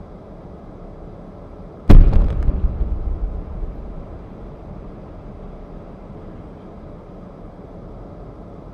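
Gas explosion in a residential building: one sudden loud blast about two seconds in, with a few sharp cracks right after it and a low rumble dying away over about two seconds, over a steady low background hum.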